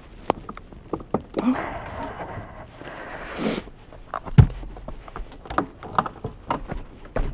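Hard breathing, with scuffs, clicks and knocks, as a rider handles a dropped Kawasaki Ninja 250R sport bike lying on its side. A heavy thump about four and a half seconds in is the loudest sound.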